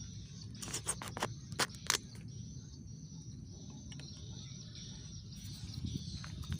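Outdoor ambience: a steady low rumble and a steady high-pitched hiss, with a quick run of sharp clicks about a second in.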